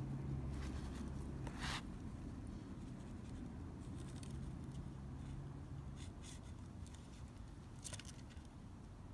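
A few brief rustling scrapes, the clearest about two seconds in and another near the end, over a low steady hum.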